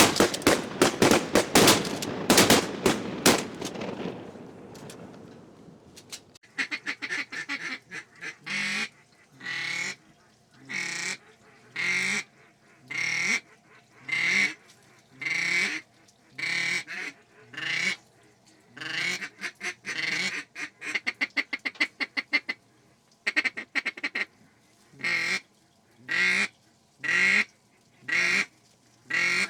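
A loud, rapid clatter in the first few seconds that fades out, then duck quacks repeating about once a second with quick chattering runs between them.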